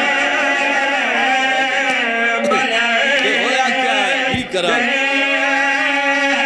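Several men's voices chant a slow, drawn-out refrain of a Punjabi mourning elegy together over a steady held note.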